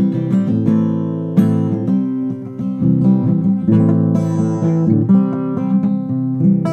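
Acoustic guitar playing an instrumental passage of strummed and picked chords that ring between strokes.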